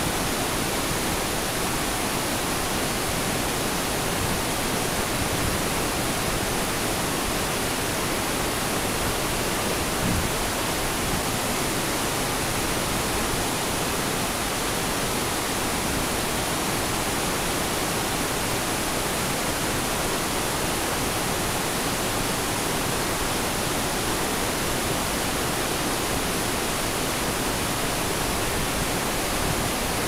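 Låtefoss twin waterfall pouring onto rocks: a steady, loud rush of falling water, spread evenly from deep to high. A brief low thump about ten seconds in.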